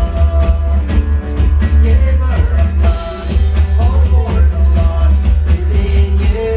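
Worship song with singing over guitar, bass and drums.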